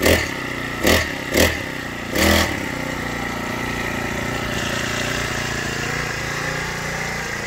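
Honda GX50 50cc four-stroke engine on a friction-drive motorized bicycle, blipped with the throttle four quick times in the first couple of seconds, then idling steadily.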